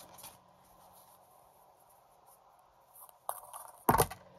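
Tarot cards being handled: quiet for about three seconds, then a few light clicks and a brief, loud clatter of cards near the end.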